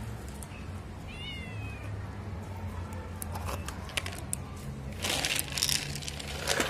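A kitten gives one short, high mew about a second in, while kittens eat dry kibble from a foil packet: light crunching and clicking, then the foil rustling and crinkling loudest near the end.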